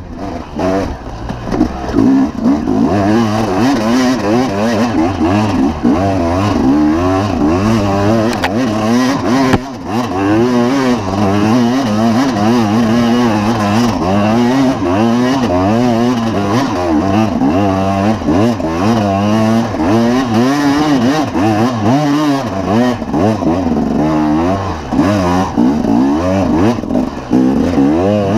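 Dirt bike engine revving up and down over and over, under load on a steep, rocky climb, with a brief drop in level about ten seconds in.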